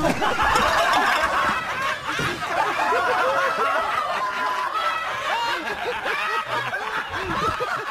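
A group of people laughing hard, many voices overlapping.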